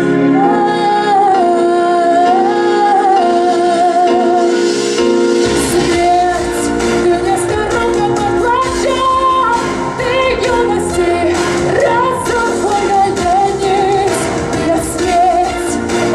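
A woman singing a pop song over a backing track. About five seconds in, bass and a drum beat come in under the voice.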